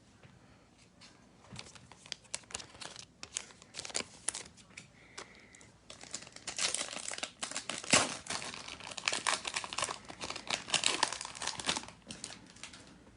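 Foil wrapper of a 2021 AEW trading card pack being torn open and crinkled: many sharp crackles, thickest and loudest in the second half, with one sharper crack in the middle.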